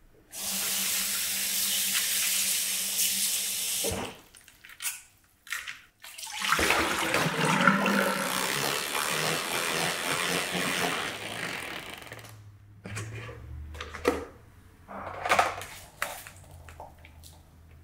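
Kitchen faucet running water over shredded cabbage in a plastic salad spinner basket: one steady stretch of a few seconds, then a second, more splashy stretch after a short pause. A few short knocks and clatters of the plastic spinner follow near the end.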